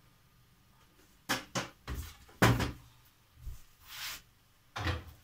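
Kitchen clatter: a string of about seven knocks and clunks as containers and utensils are picked up and put down on the counter and stove, the loudest about two and a half seconds in, with a short scraping rustle near four seconds.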